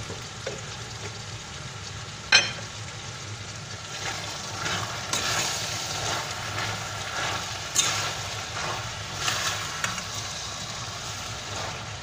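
Green bean, meat and potato stew sizzling in a stainless steel pot while a metal spoon stirs it, scraping against the pot. There is a sharp clink about two seconds in, and a run of scraping strokes in the middle.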